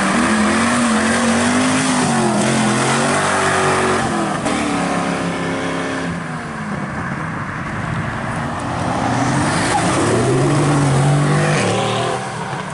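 Pontiac GTO's V8 exhaust under hard acceleration, revving up and shifting twice about two seconds apart, then falling in pitch as it pulls away. About nine seconds in, a second sports car's engine revs up and passes loudly.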